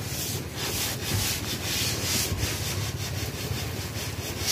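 Paintbrush scrubbing a first coat of paint onto bare plywood boat planking, a scratchy swish on each back-and-forth stroke at about three strokes a second.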